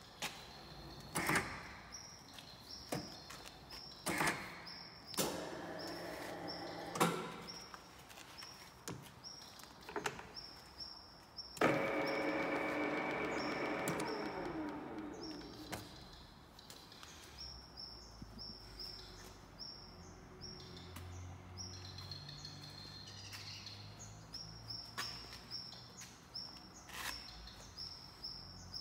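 Donau DR 28 Z radial drilling machine: sharp clicks and clunks as its levers are worked, then its spindle drive starts suddenly, whirring and falling in pitch over about four seconds as it slows.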